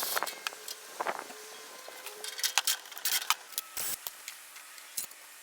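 Irregular sharp clicks, taps and short scrapes of hand work with tools and parts, with no motor running.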